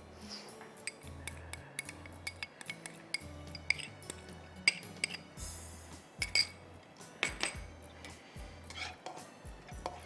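Soft background music with a plodding bass line, under scattered sharp clinks and taps of metal kitchen utensils against a wok, dishes and containers as garlic goes into oil.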